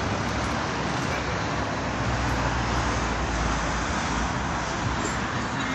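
Steady road traffic noise, an even hiss with a low rumble underneath and no distinct events.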